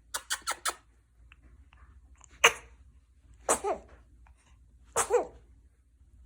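A newborn baby sneezing three times, at about two and a half, three and a half and five seconds in. The last two sneezes each end in a short squeak that falls in pitch. Just before them, right at the start, come four quick sharp sounds.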